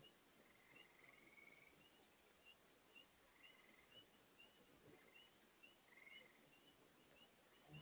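Faint steady rush of a large spring's water far below, with a regular series of short high chirps about twice a second and a few brief buzzy notes. A soft low bump comes right at the end.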